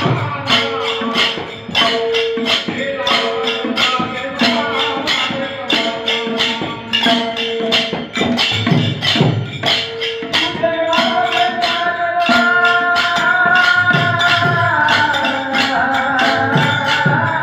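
Devotional bhajan music with a steady beat of rhythmic hand percussion. From about ten seconds in, a held, gently gliding melody comes in over it.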